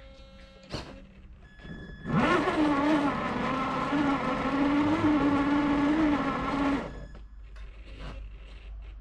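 Radio-controlled car's electric motor whining as it drives, with a hiss from the wheels. It spins up sharply about two seconds in, holds a roughly steady pitch that wavers a little with the throttle for nearly five seconds, then stops.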